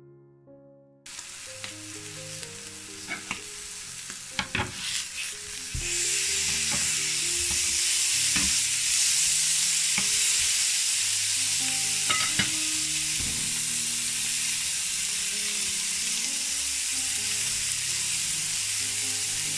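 Beef steaks sizzling as they sear in a hot grill pan. The sizzle starts about a second in, grows louder near six seconds and then holds steady, with scattered clicks as metal tongs handle the meat. Soft music plays underneath.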